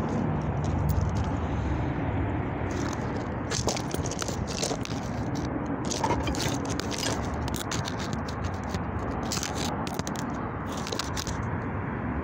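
Handling noise from a phone being moved around: irregular scraping and rubbing on the microphone with scattered clicks, over a steady low rumble.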